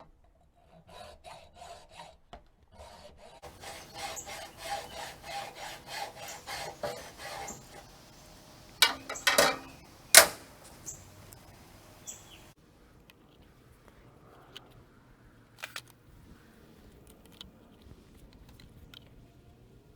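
Hacksaw cutting through the ground-spike end of a raised-bed stacking stake, in rhythmic back-and-forth strokes. The sawing stops about eight seconds in and is followed by a few sharp knocks.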